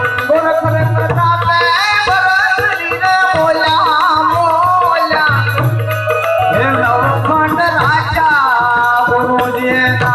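Gujarati santvani devotional folk music: a voice singing ornamented, wavering lines over held accompanying tones and a steady tabla beat.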